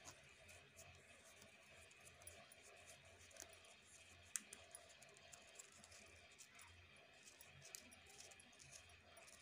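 Near silence with faint scattered clicks and rustles from a strip of card paper being rolled by hand into a paper rose, with one sharper click about four seconds in. A faint steady high hum sits underneath.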